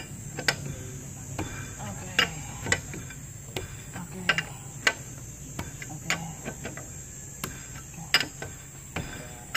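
Steel L-shaped lug wrench clinking on the wheel's lug nuts as they are run on and tightened: irregular sharp metallic clicks, about one or two a second.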